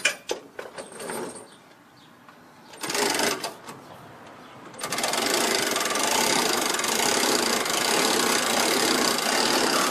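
A few clicks and knocks, a short burst of noise about three seconds in, then from about five seconds a motor starts and runs steadily with a fast, dense mechanical rattle.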